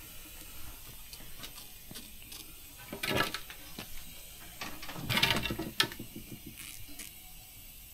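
Metal hand tool working a car battery's terminal clamp tight: small metallic clicks and scraping, with two louder bursts of rattling about three seconds in and about five seconds in. The clamp is being tightened to give the battery cable a good contact.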